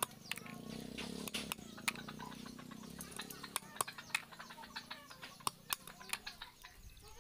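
Long knife chopping the pointed tips off a heap of freshwater snails on a wooden block: irregular sharp cracks and knocks of shell breaking, several a second. Birds chirp in the background.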